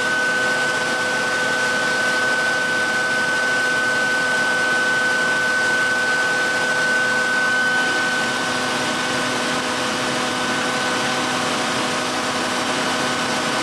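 Electric belt sharpener running steadily, its motor giving a constant high whine over an even rushing hiss.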